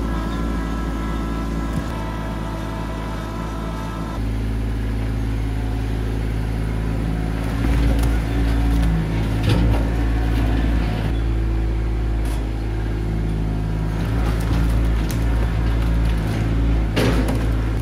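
Compact tractor engine running steadily as the front-loader bucket is tipped, with cut logs knocking and thudding as they tumble out of the bucket, loudest near the end.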